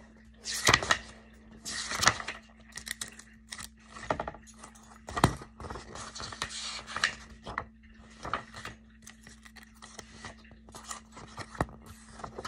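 Paper rustling and book pages being turned, in irregular bursts with sharp clicks and knocks from handling, over a faint steady hum.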